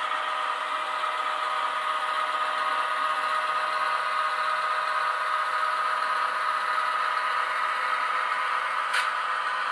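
HO-scale model SW1500 switcher's Tsunami sound decoder playing a steady diesel engine sound through the locomotive's small speaker, thin and without bass, along with the rattle of the model running on the track. A single sharp click about nine seconds in.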